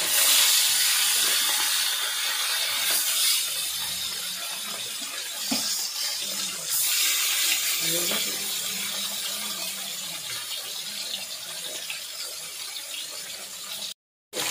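Pieces of rohu fish sizzling as they deep-fry in hot oil in a karahi. The sizzle is loudest as the fish goes in, then settles to a steady fizz that slowly fades.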